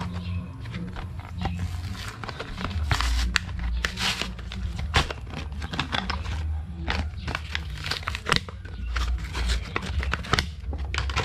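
Card-backed plastic blister pack of new brake pads being torn open and handled, with irregular crinkling and tearing crackles.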